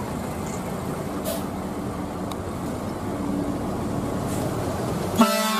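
Hino coach's diesel engine running as the bus turns slowly across wet pavement, growing a little louder. Near the end a bus horn starts a loud, steady single-pitched blast.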